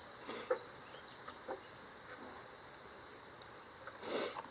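Light clicks and taps of hand work trimming a small wire with a pocket knife, with one short scrape about four seconds in, over a steady high insect hiss.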